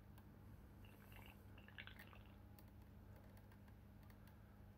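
Near silence: a faint steady low hum, with a few faint drips of water about a second or two in.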